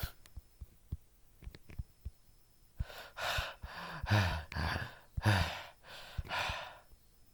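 A man breathing heavily: five or six loud, breathy sighs or pants in a row, starting about three seconds in, after a few faint clicks.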